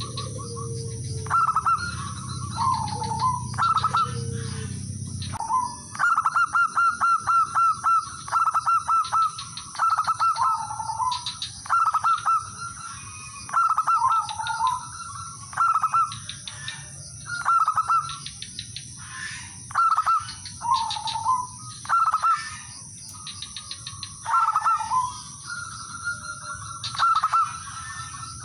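Male zebra doves singing their staccato cooing song, phrase after phrase about every two seconds. Each phrase is a quick run of clipped notes with a lower, curling coo. The song is the male's call to rival males.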